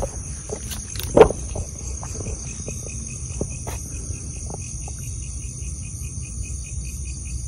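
Night chorus of crickets, a steady high trilling with a faster pulsed chirp beneath it, over footsteps through leaves and undergrowth. One louder knock stands out about a second in.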